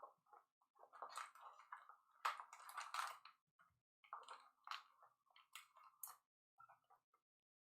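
Faint crinkling and rustling of plastic wrap and cardboard packaging in short, irregular spurts as a trading-card box is opened.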